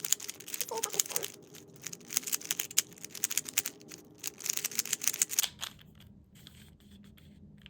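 Plastic 3x3 Rubik's cube being turned rapidly by hand, a fast run of clicking and clacking layer turns that stops about five and a half seconds in.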